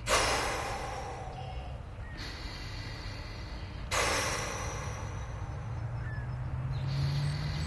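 A woman's forceful 'dragon breath' breathing through the mouth: three long, hissing breaths, at the start, about four seconds in and near the end, each fading out over a second or two.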